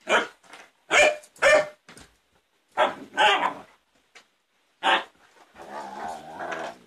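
Huskies barking in play: about six short, sharp barks in the first five seconds, then a drawn-out, pitched growling call near the end.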